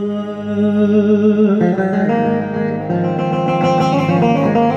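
Instrumental passage of a Turkish folk song, with no singing: a long held note that changes about a second and a half in, then plucked-string notes over a steady backing.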